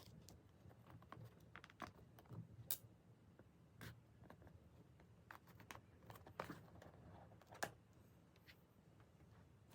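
Faint, irregular clicks, taps and light rustles of a phone and its packaging being handled, with the sharpest clicks about three seconds in and again about eight seconds in.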